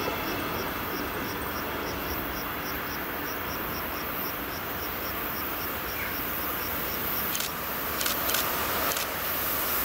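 Fading rumble of a passenger train pulling away into the distance, under a steady rhythm of short high insect chirps, about three a second. Near the end a few sharp clicks come in.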